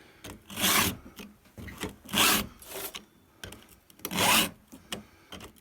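Stihl chain sharpening tool filing a chainsaw chain's cutting tooth: three even rasping file strokes, each about half a second long, at a steady pace.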